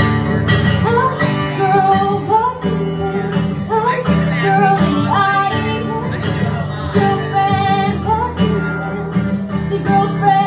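Acoustic guitar strummed in a steady rhythm, with a young female voice singing a melody over it.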